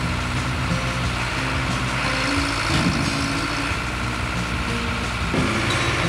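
Diesel engine of a Smalley 363 amphibious dredger running steadily; its note changes abruptly a little over five seconds in.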